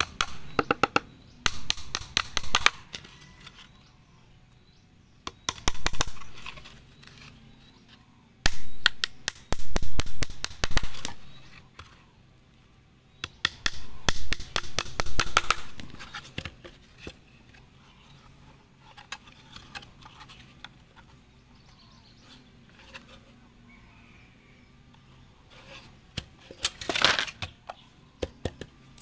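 Claw hammer driving nails into scrap wooden boards while a concrete-block mould is nailed together: several bursts of quick, sharp strikes with pauses between.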